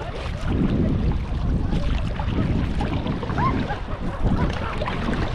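Wind rushing over the microphone, with water sloshing and splashing around a sea kayak in soft surges about once a second.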